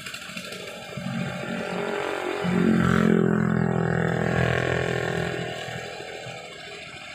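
SANY hydraulic excavator's diesel engine revving up about a second in, running at its loudest for a few seconds with a steady pitch, then easing back down near the end.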